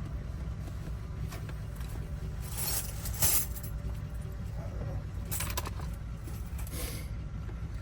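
Keys and small metal pieces jangling and clinking as they are handled, in three short clusters (the loudest a few seconds in), over a steady low rumble.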